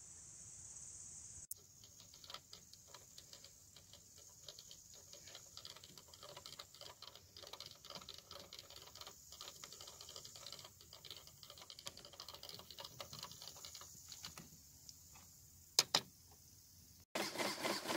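Rapid, irregular clicking of a LEGO anchor winch's plastic parts as it is cranked by hand, with two sharp, louder clacks near the end. About a second before the end a louder, fast rhythmic clatter cuts in: the LEGO pneumatic engine running.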